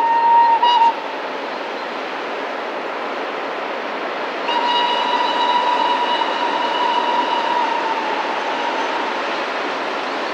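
Steam whistle of the Borsig Mikado steam locomotive 06 018. A blast cuts off about a second in, and a longer blast of about three and a half seconds starts near the middle and sags slightly in pitch as it ends. Both sound over the steady noise of the freight train running.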